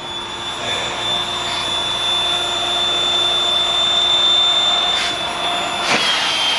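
Electric high-volume, low-pressure air pump running steadily with a whine, blowing up the inflatable boat's tubes. There is a click about five seconds in, and the whine drops slightly in pitch a little after six seconds.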